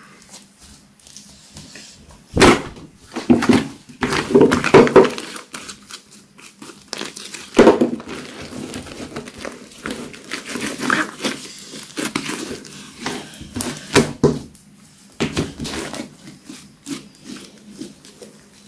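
Hands stretching, folding and squeezing slime mixed with eyeshadow: irregular wet squelches, pops and crackles, with a few louder pops scattered through.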